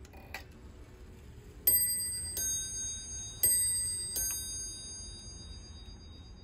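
Striking mechanism of an antique Italian spring-wound bronze figural mantel clock, set off by moving the minute hand. After a small click it strikes four times, in two pairs of two different notes, each strike ringing on and fading.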